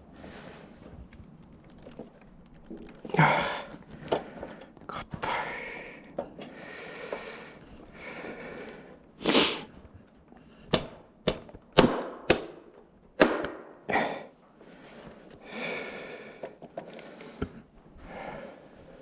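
Hands working on tool chest drawer hardware: a series of sharp metallic clicks and knocks, bunched together about halfway through, among a few short scraping sounds.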